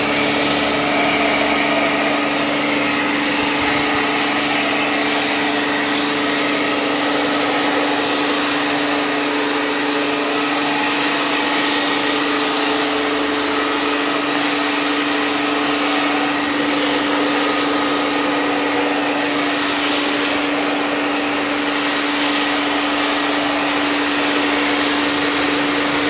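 Pressure washer running, its motor and pump holding a steady hum under the hiss of the spray, laying foam on a car. The hiss swells and eases now and then as the lance moves.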